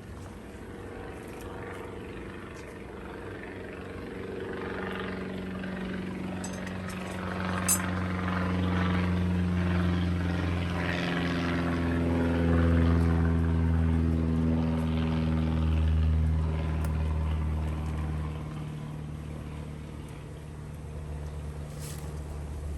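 A passing engine droning: a steady hum that swells toward the middle, sinks slightly in pitch, and fades away again.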